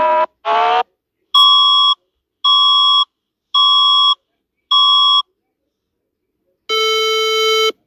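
Electronic alarm tones. A short rising sweep is followed by four even beeps about a second apart, then a longer, lower buzzing tone near the end.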